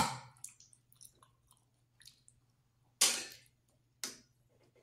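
A metal spoon clinks sharply against a ceramic bowl. Faint small ticks follow, then two short scraping sounds about three and four seconds in as a spoonful of thick kare-kare sauce is scooped from the bowl.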